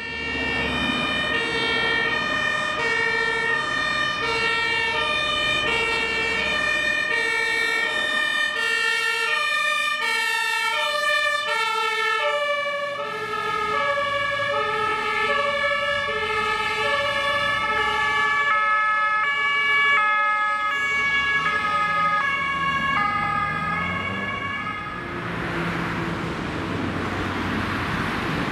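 Two-tone horns (Martinshorn) of German fire engines on an emergency run. Several horns sound at once, each switching back and forth between its two pitches, out of step with each other. About 25 seconds in they fade, and the rushing noise of passing engines and traffic takes over.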